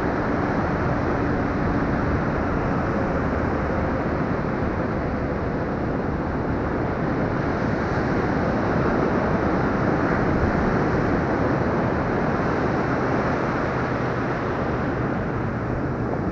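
Steady rush of surf washing in at the water's edge, mixed with wind buffeting the action camera's microphone.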